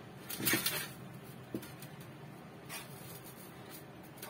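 A spoon stirring and scraping through crumbly ragi flour dough in a steel bowl: a few soft, short scrapes, the clearest about half a second in.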